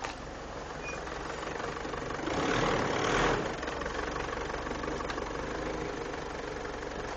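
Mitsubishi L200 pickup running steadily, with a louder stretch of about a second a little over two seconds in.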